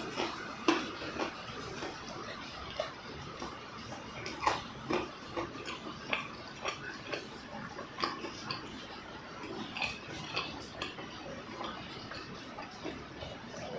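Close-miked chewing of buckwheat crepes: irregular short mouth clicks and smacks.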